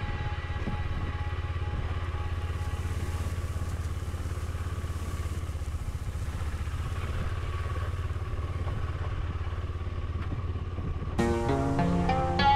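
KTM Adventure 250's single-cylinder engine running steadily at low revs in first gear while the bike crawls at walking pace. About eleven seconds in, a plucked-string music track comes in, louder than the engine.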